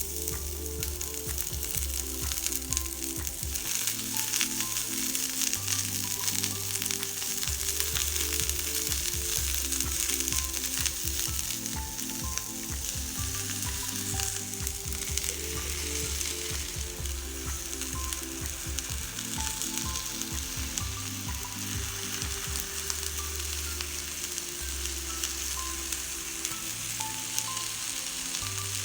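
Food sizzling as it fries in oil in a pan, a steady crackling hiss, over soft background music with low held notes.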